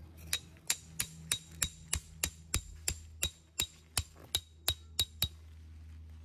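A peg hammer driving a forged steel tent peg: about sixteen quick, even strikes at roughly three a second, each with a short metallic ring, stopping a little after five seconds in.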